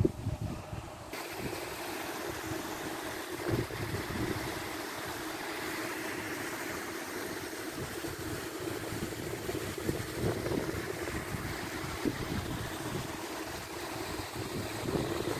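Paddlewheel aerators churning pond water: a steady rushing wash with a constant low hum, and irregular low thumps of wind on the microphone.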